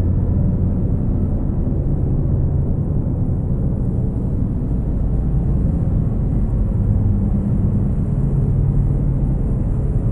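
Dark ambient drone music of guitar, synths and electronics: a steady, dense low rumble with deep tones that swell and fade slowly underneath.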